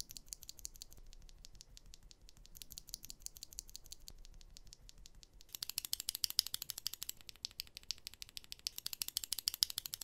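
Stock, unlubed Gateron Clear linear mechanical keyboard switch pressed rapidly and over and over, giving quick faint clicks. About halfway through a keycap is on it, and the clacks become noticeably louder.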